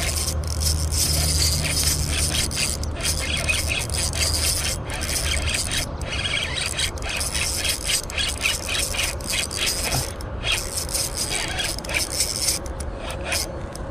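Spinning fishing reel being cranked, a continuous rasping scrape flickering with quick irregular clicks, as a fish is reeled in.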